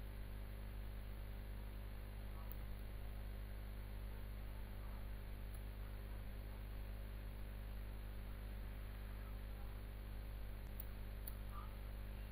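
Steady low electrical mains hum with a few faint clicks.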